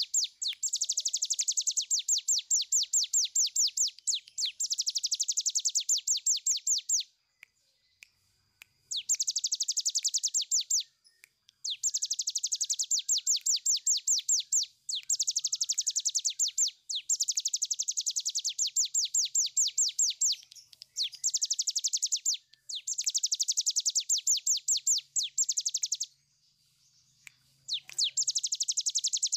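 A caged cigun (a prinia) singing its long rattling trill, the 'ngebren': high, sharp notes repeated about ten times a second. The runs last two to four seconds each, separated by brief pauses, with a longer pause about seven seconds in and another near the end.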